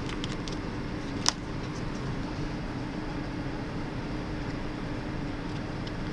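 Small cardboard jigsaw puzzle pieces being pulled apart and handled on a table: a few light clicks, then one sharp tap about a second in, over a steady low hum of room noise.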